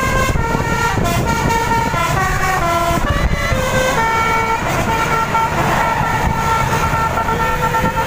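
A tour bus's multi-tone 'basuri' telolet horn playing a tune, a run of short notes stepping up and down, then longer held notes in the second half, over the low rumble of engines and wind on the microphone.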